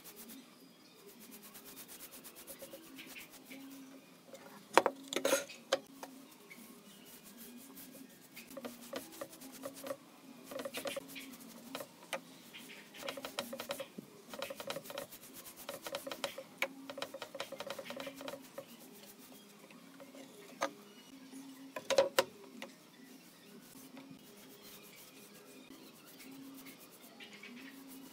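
Paintbrush bristles rubbing and swishing across a finger-jointed pine panel as a clear finish is brushed on, in spells of quick back-and-forth strokes. There are two sharp knocks, about five seconds in and again about twenty-two seconds in.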